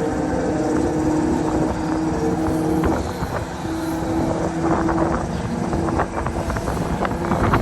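Amusement park ride running at speed: a steady mechanical rumble with rattling and clatter that thickens in the second half, with wind noise on the microphone.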